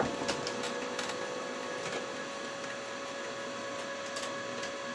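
Desktop printer running as it prints a sheet: a steady whir with a faint steady tone, and a few light clicks in the first two seconds.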